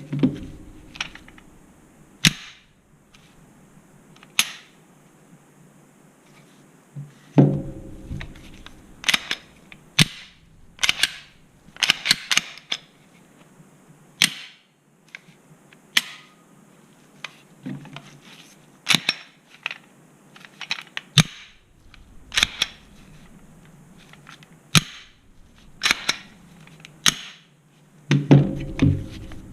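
Glock 17 and CZ P10F pistols being handled: many sharp metallic clicks and snaps at irregular intervals, some in quick clusters, with a few heavier knocks.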